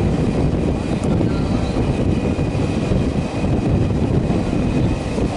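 Express train running through at speed, a loud, steady rumble of the coaches on the track.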